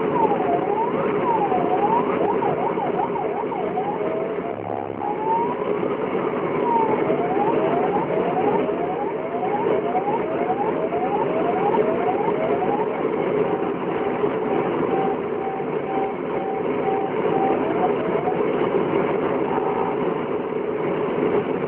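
Electronic vehicle siren cycling through its tones to clear traffic: a few slow wails, then a fast yelp, then a run of quick rising sweeps and a pulsing steady tone, over steady engine and road noise.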